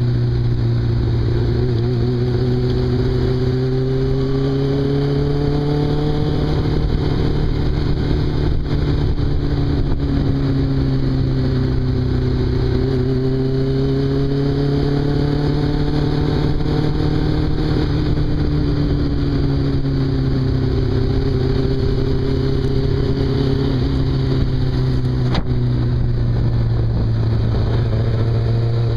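Motorcycle engine running under way at a steady speed, its pitch slowly rising and falling through the bends, with steady wind rush over the microphone.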